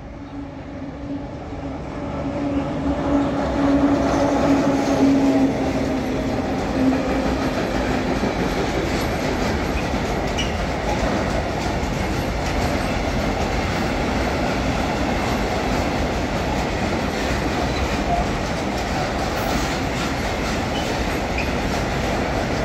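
A container freight train passing close by. The locomotive's humming tone swells to its loudest a few seconds in and then fades, giving way to a steady rumble and clatter of container wagons rolling over the rails.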